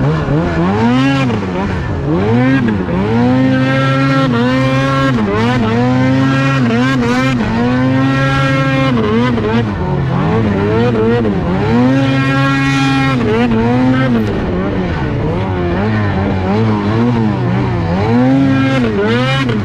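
Ski-Doo Summit's two-stroke E-TEC engine breathing through a loud GGB aftermarket exhaust, revving up and dropping back over and over as the throttle is worked through deep powder.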